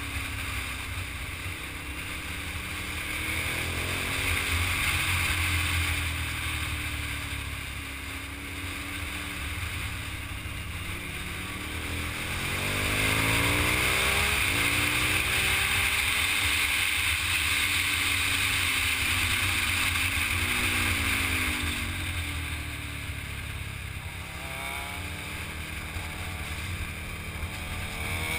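Motorcycle engine heard from a camera on the moving bike, over a steady rush of wind and road noise; the engine pitch rises and falls again and again with throttle and gear changes through the bends, louder from about 13 to 21 seconds in.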